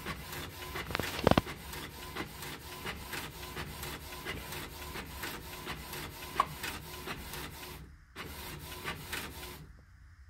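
Canon TS5120 inkjet printer printing a photo: the print head shuttles back and forth in a steady rhythm of about three strokes a second as the sheet feeds out, with a louder clack about a second in. The printing stops shortly before the end.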